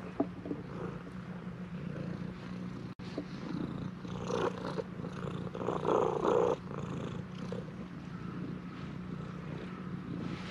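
Orange-and-white tabby cat purring steadily and loudly while being stroked, with louder rubbing and rustling of fur close to the microphone around the middle.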